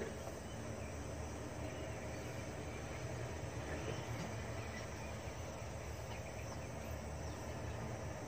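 Steady low rumble of idling heavy diesel machinery, with insects chirping over it.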